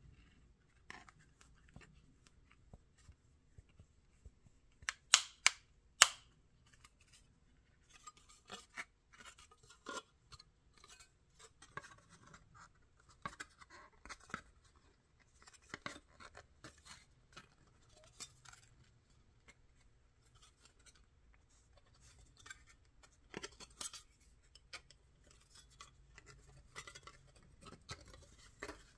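Fingertips picking and scratching at the edge of a clear protective plastic film on a small printed plate, with the film crackling as it lifts and peels away. A few sharp clicks about five seconds in are the loudest sounds.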